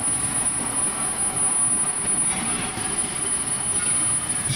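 Metal lathe running steadily while a cutting tool faces the end of a spinning steel ring, a continuous machine drone with the hiss of the cut.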